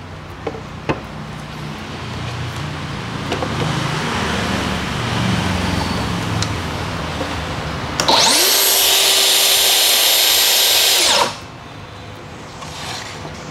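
Cordless track saws run free with no load: first a lower, steadier running sound, then about eight seconds in a saw spins up to a loud, high-pitched whine, the blade whine of the Makita DSP600Z's 6,300 rpm no-load speed. It runs about three seconds and cuts off quickly as the electric brake stops the blade.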